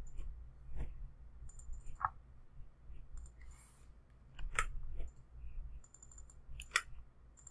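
Faint clicks of a computer mouse and keyboard: a handful of separate sharp clicks, spread a few seconds apart.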